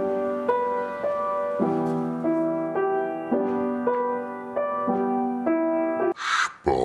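A simple, slow keyboard melody, single piano-like notes about two a second. It stops about six seconds in, followed by a short hiss and the start of a low, falling vocal groan.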